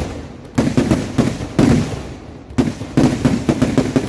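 Festival fireworks display going off in rapid clusters of sharp bangs, one volley after another, each trailing a brief echoing rumble.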